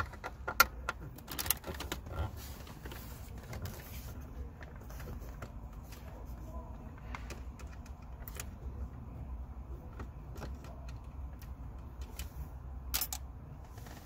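Phillips screwdriver working screws out of dashboard trim: scattered sharp clicks and light metal taps, thickest in the first few seconds and again near the end, over a low steady rumble.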